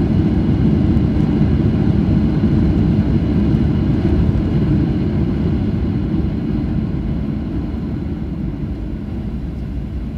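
Cabin noise of a Boeing 737-900 airliner on its landing rollout: a loud steady rumble of its CFM56 jet engines and rushing air, easing off gradually over the second half as the jet slows down.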